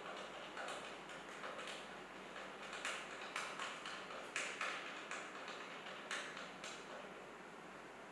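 Adjustable table-leg foot being screwed by hand into the end of a wooden leg: a run of short, irregular scraping clicks as it turns, loudest in the middle and stopping over a second before the end.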